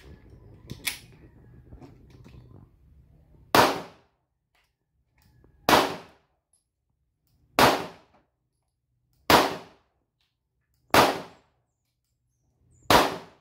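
Glock 43 9mm pistol firing six single shots, spaced roughly two seconds apart. Two sharp clicks come in the first second, before the first shot.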